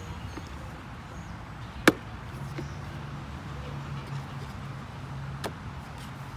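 A sharp, loud click about two seconds in and a fainter one near the end, over a low steady hum that starts a little after the first click.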